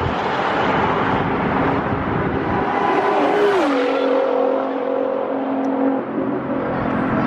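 Car driving fast on a highway, heard from a camera mounted outside the car: heavy wind and road noise over an engine tone that drops in pitch about three and a half seconds in, then holds steady.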